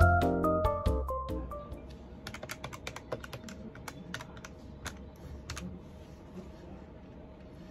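Background music fading out in the first second or so, then quick tapping on the keys of a desktop calculator: a fast run of clicks that thins out to a few scattered taps.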